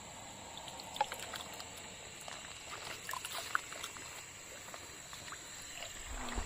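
Watermelon juice being ladled from a hollowed-out watermelon and poured into a paper cup: a faint pouring trickle with scattered light taps of the metal spoon.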